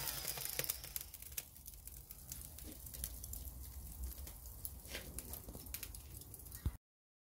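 Lump charcoal just lit by an electric hot-air lighter, crackling and ticking faintly with scattered sharp pops as it catches, after the lighter's blower fades out in the first second.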